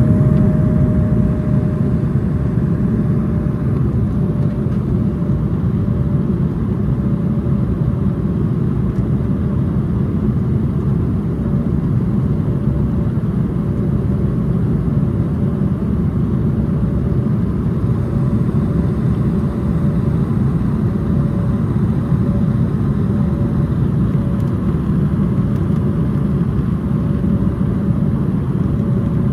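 Steady cabin noise inside an Embraer E175 airliner in flight: the low rush of airflow and its GE CF34 turbofan engines, heard from a window seat, with a faint steady tone humming through it.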